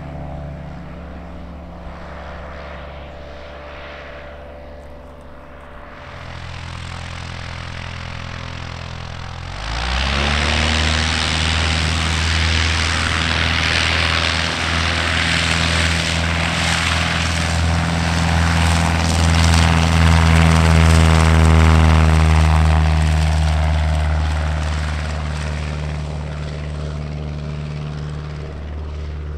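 Single-engine light planes' piston engines and propellers: a moderate steady drone at first, then about ten seconds in a sudden rise to full take-off power from a high-wing Cessna, a loud steady drone that peaks past the middle and slowly falls away as the plane passes and climbs out.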